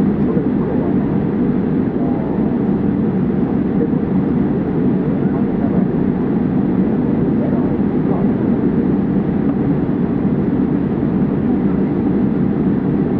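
Steady cabin noise inside a Boeing 787-8 Dreamliner taxiing slowly on the ground, its Rolls-Royce Trent 1000 engines at low taxi power.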